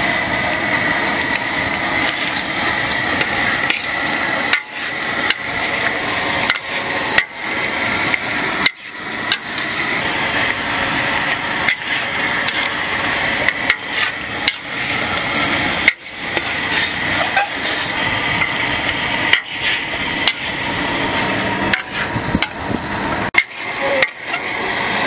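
Metal spatula knocking and scraping against a wok while crab is stir-fried: irregular sharp clanks, sometimes several a second, over a steady hiss of frying.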